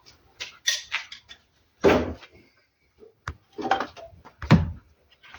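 Knocks and clunks of hard objects being handled, with two louder knocks about two and four and a half seconds in and a sharp click between them.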